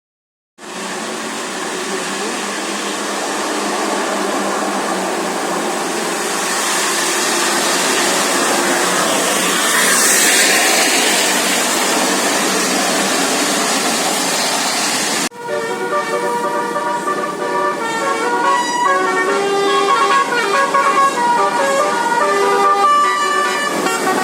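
A steady rushing noise of a vehicle on the road, then after an abrupt cut about 15 seconds in, a bus's multi-tone 'telolet basuri' musical horn playing a stepping melody.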